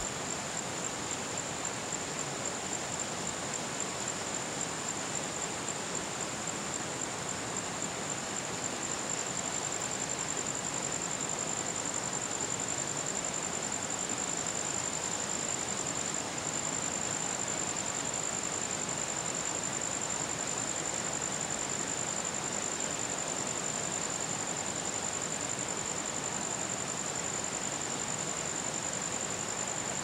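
Steady background hiss with a continuous high-pitched whine that holds one pitch throughout.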